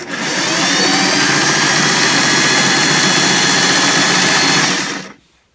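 Early electric sewing machine running as it stitches fabric: the motor's whine rises as it speeds up in the first second, holds steady, and stops about five seconds in.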